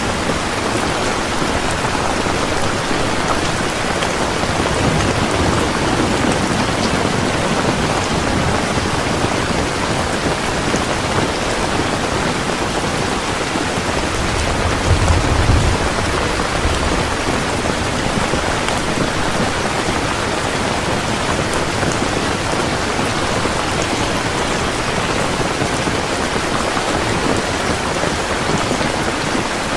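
Heavy rain falling steadily, with a brief low rumble of thunder about halfway through.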